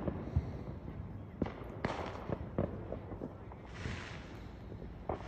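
Neighborhood consumer fireworks going off: scattered bangs and pops at uneven intervals, with a spell of hissing crackle a little before four seconds in.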